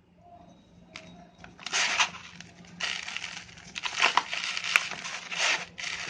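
Dried red sand-cement chunks being crushed and crumbled: after a quiet start, about five gritty, crunchy bursts with a few sharp cracks.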